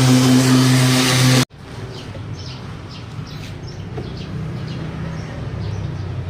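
A motor running steadily with a loud low hum, cut off abruptly about one and a half seconds in. It is followed by quieter background noise with faint bird chirps.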